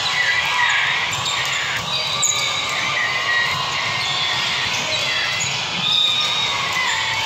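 Sneakers squeaking on a hardwood gym floor and a volleyball being struck during a rally, with many short squeaks and a few sharp hits in an echoing hall.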